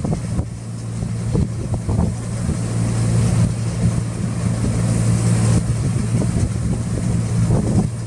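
Deutz-Fahr 6090 HTS combine harvester running while unloading grain through its auger into a trailer: a steady engine drone with an even hiss over it.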